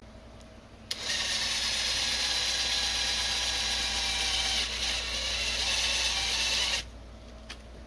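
Cordless drill running steadily for about six seconds, spinning a new piano backcheck onto its old backcheck wire. It starts about a second in, dips briefly midway and stops near the end.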